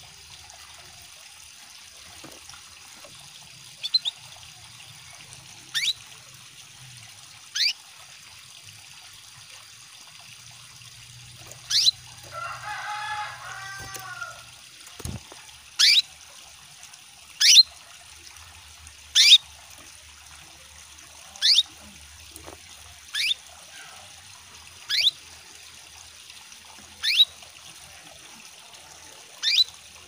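Female canary calling: short, sharp chirps that fall steeply in pitch, repeated one every second or two, the call of a hen in breeding condition calling to males. A steady trickle of water runs underneath, and a brief lower warbling sound comes about twelve seconds in.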